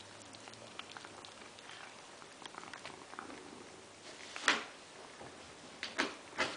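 Maine Coon cat chewing a mouse: faint scattered small clicks of chewing, with a louder short burst about four and a half seconds in and two more near the end.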